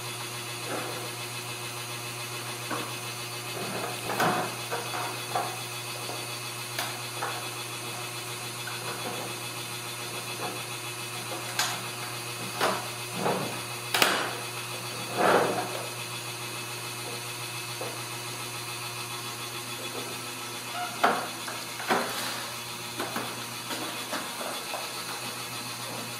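Scattered knocks and clicks of a plastic toy car being handled on a tile floor, the sharpest about halfway through, over a steady low hum.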